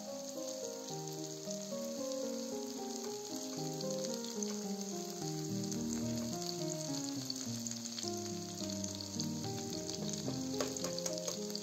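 Oil sizzling as a chopped eggplant, pepper and tomato mixture fries in a nonstick pan and is pushed about with a silicone spatula, with soft background music. A few light clicks come near the end.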